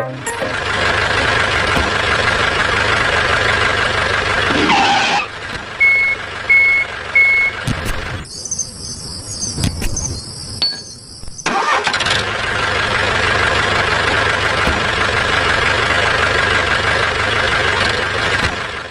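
A small motor running steadily, broken off partway by a few seconds of different sound: three short, evenly spaced beeps, then a high hiss. After that the motor runs on steadily.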